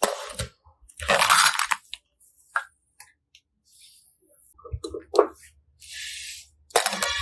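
Slime being pressed and squished in several short separate bursts, with crunchy crackling and small clicks between.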